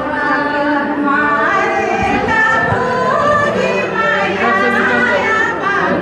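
A group of people singing a hymn together.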